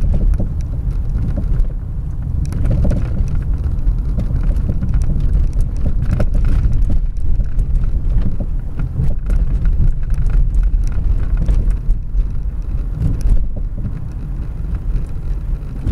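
A car coasting with its engine off, heard from inside the cabin: a low rumble of tyres on the road with many short knocks and rattles from the suspension, a strong noise coming from the rear of the car.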